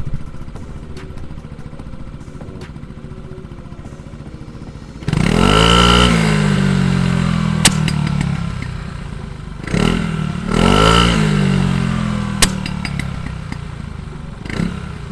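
Yamaha Force 155 scooter's single-cylinder engine idling through an aftermarket stainless exhaust, then revved hard twice, about five and about ten seconds in. As each rev falls away there is a single sharp pop from the exhaust: a backfire deliberately switched on in the tuned ECU's backfire setting.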